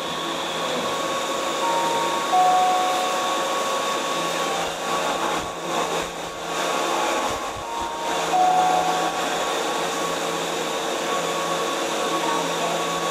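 Steady whirring of a Keihan 3000 series train's air-conditioning and equipment blowers, heard inside the car while it stands at a station. A short falling two-note chime sounds twice, near the start and about halfway through.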